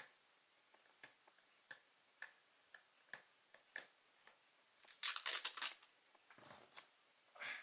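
Scattered light clicks and taps of small parts being handled, with a brief rustle about five seconds in and a shorter one near the end.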